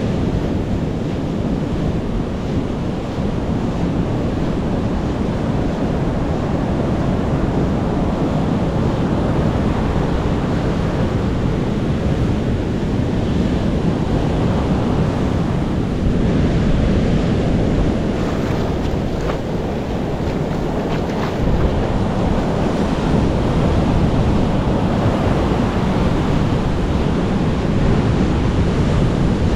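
Ocean surf washing onto a beach, a steady rush of waves, with wind buffeting the microphone.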